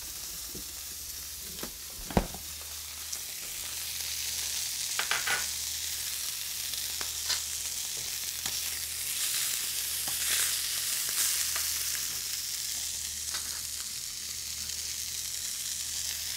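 Beef tenderloin steaks sizzling in a stainless steel skillet as they sear, a steady frying hiss that grows a little louder a few seconds in. A sharp click about two seconds in and a few lighter clicks later.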